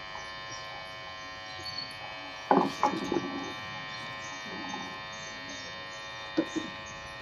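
Steady electrical buzz with a stack of even tones, broken by a few short sudden noises about two and a half seconds in and again near the end.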